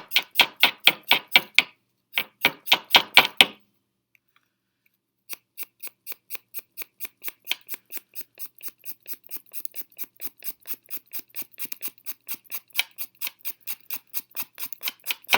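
Rapid, evenly spaced clicking, about five a second, from hand work on a fingerboard during its setup. It breaks off for nearly two seconds a few seconds in, then carries on more softly.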